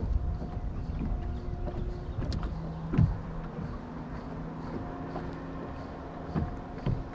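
Electric trolling motor humming in on-and-off stretches as the boat is held along the bank, with a sharp knock on the boat about three seconds in and a few lighter knocks near the end.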